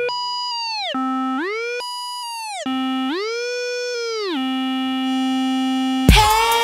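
A lone synthesizer tone in an electronic dance track, sliding up an octave and back down several times, holding each pitch for a moment. The full beat comes back in near the end.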